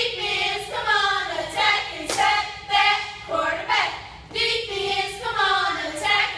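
A group of girls yelling a cheer in unison, their voices held and chant-like, punctuated by sharp claps or stomps every second or so.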